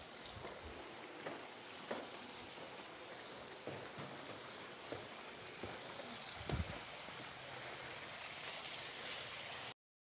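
Footsteps on stone paving over a steady, faint hiss of outdoor ambience: scattered soft knocks, with one louder low thump about six and a half seconds in. The sound cuts off suddenly near the end.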